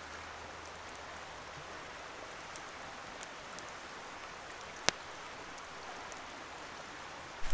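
Steady, even rush of running water from the creek, with a single sharp click about five seconds in.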